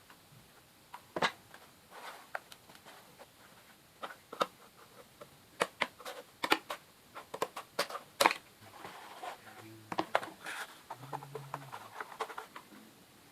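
Cardboard being handled and worked by hand: irregular sharp taps, clicks and scraping, busiest in the middle stretch.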